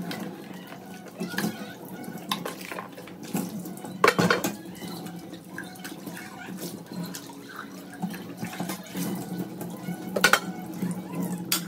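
Kitchen tap running into a stainless steel sink while plastic food containers and a spoon are rinsed under it. Occasional knocks of the dishes against the sink, the loudest about four seconds in.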